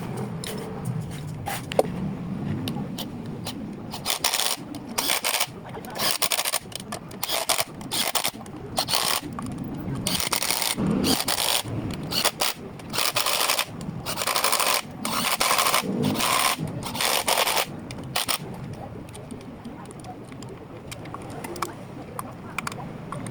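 A run of short, harsh scraping strokes, roughly one a second, through the middle stretch, over a steady low background.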